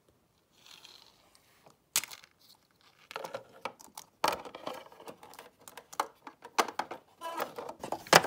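Plastic toy figurines and a plastic playset being handled by hand: a single click about two seconds in, then a run of light clicks, taps and rustles from about three seconds in.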